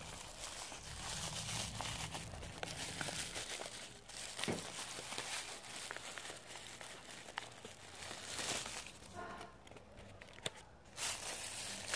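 Crinkling and rustling of a wadded plastic shopping bag and sheets of paper as they are handled and folded by hand, with scattered small crackles.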